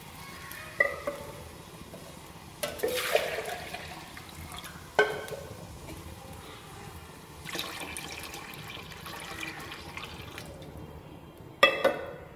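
Chicken curry in a large pot, just topped up with water, bubbling and simmering steadily. A few sharp knocks and clinks come about a second in, around five seconds in and near the end, with a louder burst around three seconds.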